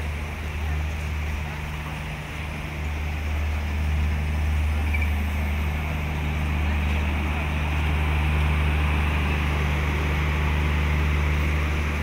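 Strizh Talgo passenger train running past on the station track: a steady rush and low rumble of the passing coaches that carries on as the last coach goes by and the train moves off.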